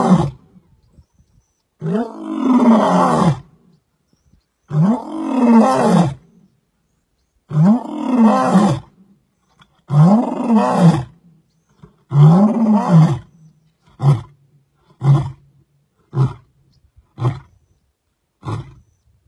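Male lion roaring in a full bout: about five long, deep roars, each rising and falling in pitch, then a run of five short grunts about a second apart that trail off.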